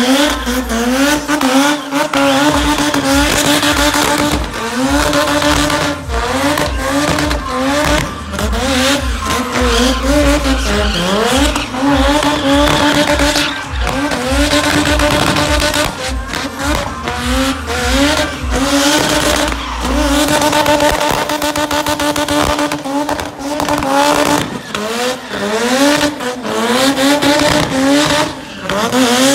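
A car's engine revving hard through a burnout, its pitch rising and falling over and over as the throttle is worked, with the rear tires spinning and squealing.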